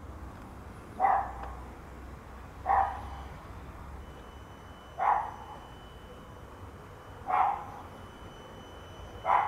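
A dog barking five times, about two seconds apart, over a steady low hum.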